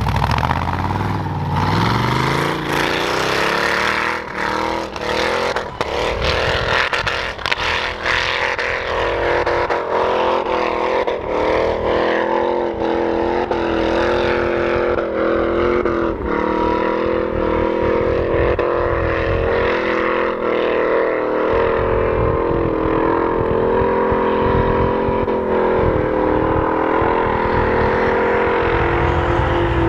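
V8 engine of a swapped off-road 4x4 revving hard, its pitch climbing over the first few seconds and then held at high, nearly steady revs, with sharp crackles through the first dozen seconds.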